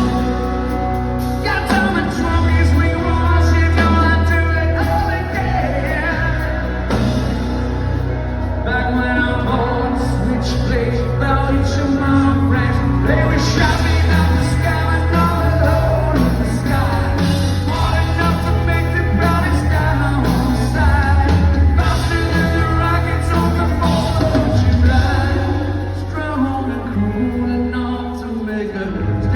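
Live rock band playing a song with a male lead singer over a steady bass and drum beat.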